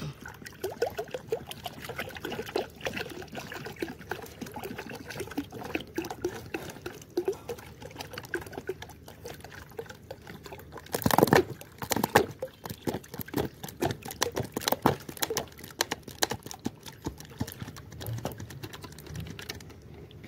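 Water pouring from a plastic bottle into a terracotta bowl that already holds water, a continuous irregular splashing trickle that gets louder for a moment about eleven seconds in.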